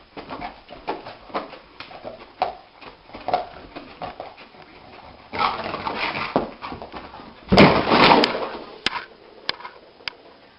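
A dog's noises among a run of clicks and knocks, with two louder rough bursts about five and a half and seven and a half seconds in, the second the loudest.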